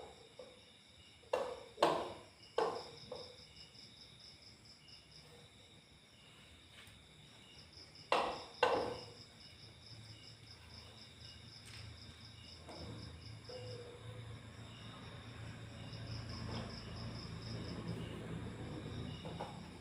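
A handful of sharp knocks from parts and tools being handled in assembly work: three within the first three seconds and a pair about eight seconds in. They sound over a steady, evenly pulsing insect trill. A low hum grows from about halfway through.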